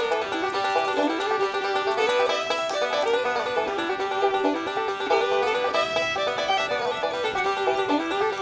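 Bluegrass-style background music led by a plucked banjo.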